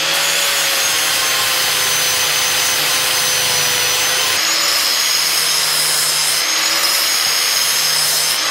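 Electric grinder spinning up and then running steadily with a high whine, grinding stainless steel exhaust pipe to fit a joint; the pitch shifts a little about halfway through as the load changes.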